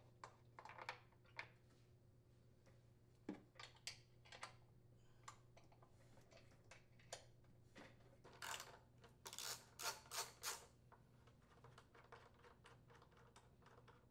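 Faint, scattered clicks and taps of a socket wrench working the blower housing mounting bolts on a Briggs & Stratton small engine, with a run of louder clicking bursts about eight to ten seconds in, over a low steady hum.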